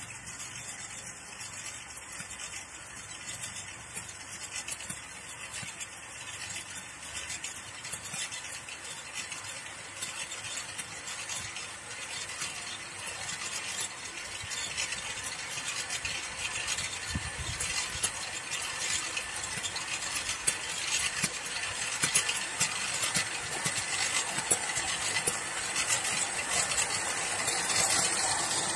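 Homemade electric Krot cultivator running, its electric motor driving goose-foot rotary tines through unbroken virgin soil, with a faint steady whine and constant clinking and rattling of metal and clods. It grows louder towards the end as the machine comes close.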